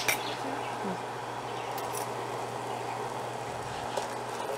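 Induction cooktop running under a stainless steel pot, giving a steady hum with fan noise. There is a click at the start, and a light spoon knock in the pot near the end as stirring begins.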